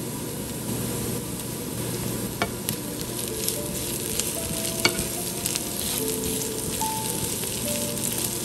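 Diced onion and carrot frying in olive oil in a pan, sizzling steadily, while tomato paste is stirred in with a wooden spatula that scrapes and taps against the pan a few times.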